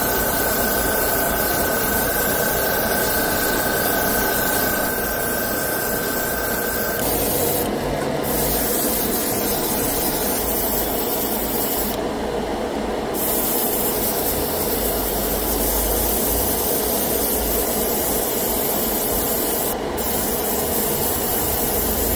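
Airbrush spraying paint with a steady hiss over the lower steady noise of a spray booth fan. The spray hiss cuts out briefly about eight seconds in, for about a second around twelve seconds, and once more near the end, as the trigger is let go.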